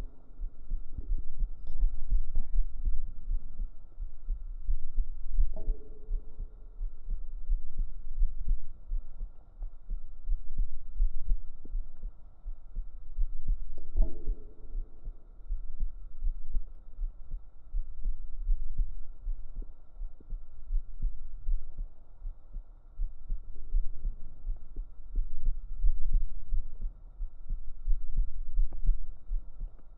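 A woman's deep heartbeat recorded up close on the chest with binaural microphones: steady, regular low thumps.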